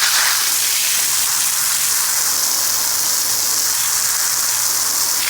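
Fire extinguisher discharging in one steady, loud hiss, sprayed onto a hot battery; it stops abruptly near the end.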